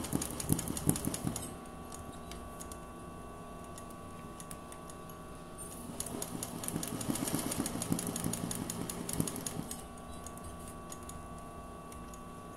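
Sewing machine stitching free-motion embroidery in a hoop, running in two spells: a quick run of rapid needle strokes at the start, a pause, then a longer run of about four seconds from about six seconds in. A quieter steady hum fills the pauses.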